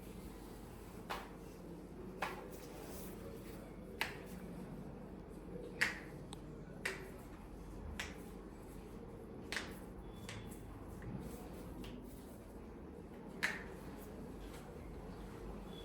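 Joints cracking under chiropractic manipulation: about eight short, sharp pops at irregular intervals of one to two seconds, the loudest about six seconds in.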